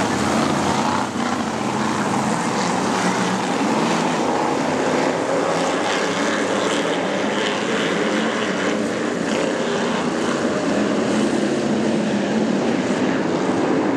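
Supermodified race cars' engines running together on track, a loud steady drone of several engines at once.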